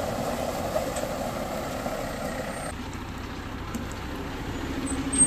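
A heavy diesel work truck's engine running steadily, its sound changing a little under three seconds in.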